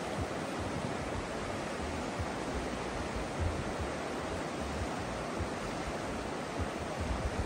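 Fast glacial river running over rocks in rapids: a steady rushing of white water.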